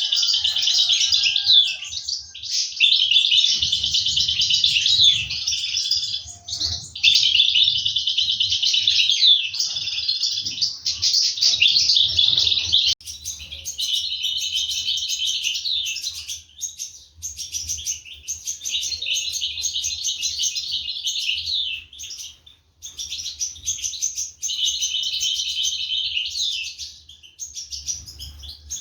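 European goldfinches chirping rapidly and high-pitched in long, almost unbroken runs with brief pauses, the calls of chicks and parents at feeding time.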